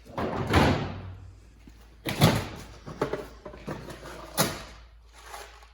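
Rummaging through drawers and hardware while looking for screws: four or five sharp clunks and sliding scrapes, the loudest about two seconds in.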